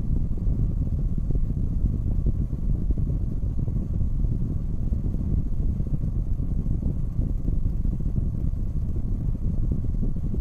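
Car air conditioning blowing cold air from a dashboard vent: a steady low rush of air that buffets the microphone.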